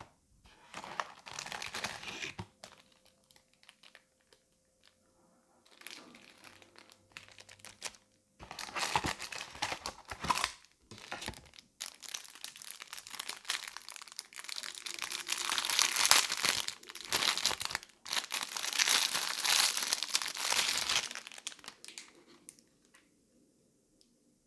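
Thin clear plastic wrapper crinkling and tearing as it is pulled off a TV-style remote control. It comes in bursts, with short pauses between, and grows loudest and most continuous through the second half before stopping shortly before the end.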